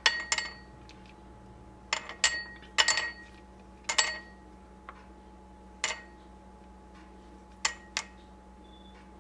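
Whole almonds dropped by hand into a ceramic bowl, each landing with a sharp click. The clicks come irregularly, singly or in quick pairs, up to a second or two apart.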